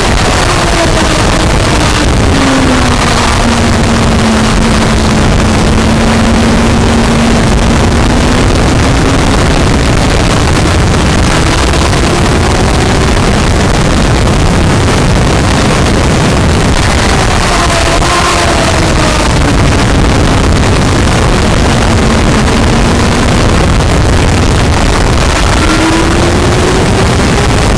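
Sport motorcycle at track speed, heard through heavy wind noise on the action camera's microphone. The engine note underneath drops as the bike slows for a corner and climbs again as it accelerates out, twice.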